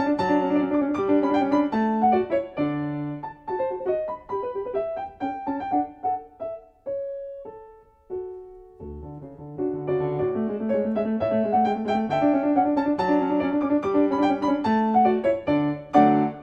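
Background piano music, a gentle melody of single notes over chords. It thins out to a few quiet notes about halfway through, then picks up again.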